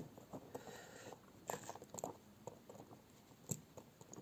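Faint, scattered clicks and small scrapes of a fine metal watchmaker's tool working against a mechanical watch movement, prying at a keyless-works part that is still held fast.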